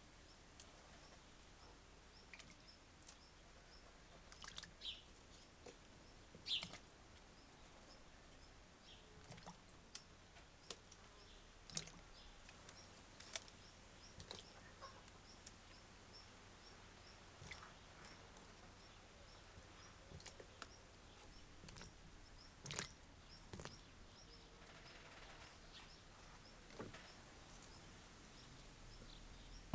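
Quiet ambience with scattered light clicks and taps, and a faint high chirp repeating about twice a second.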